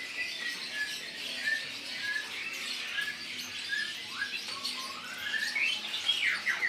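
Many caged songbirds chirping and calling together, with one bird repeating a short whistled note about twice a second and a few quick rising notes near the end.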